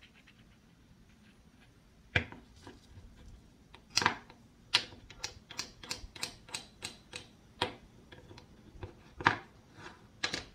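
Wooden toy knife and wooden toy pear clicking and knocking against a wooden cutting board as the pear is cut in two: scattered sharp taps, with a quick run of light ticks about halfway through.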